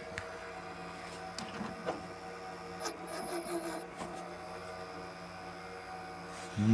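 Old Socket 478 desktop PC running just after being switched on: a steady hum from its fans and power supply, with a few light clicks.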